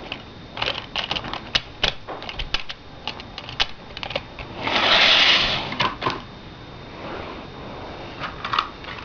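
Irregular clicks and clacks of plastic HO-scale model train cars being handled and set onto the track by hand. A brief scraping hiss comes about five seconds in.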